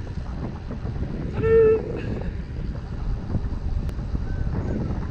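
Wind buffeting the microphone of a camera mounted on a moving bicycle, over a steady low road rumble. About a second and a half in, a short, loud pitched beep sounds once.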